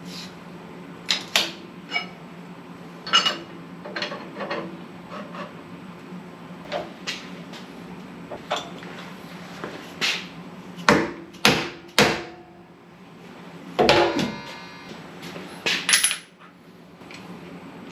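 Irregular metal clinks and knocks of tools and a steel workpiece being handled at a milling machine, over a steady low hum. The knocks come thicker and louder about two-thirds through, with a brief metallic ring.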